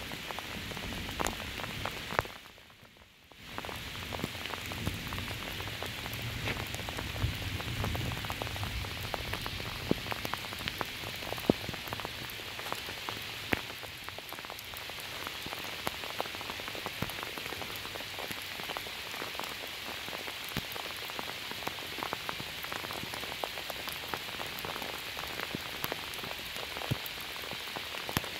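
Steady rain falling, with many individual drops tapping sharply close by. A low rumble sits under it for the first several seconds, and the sound drops away briefly about two seconds in.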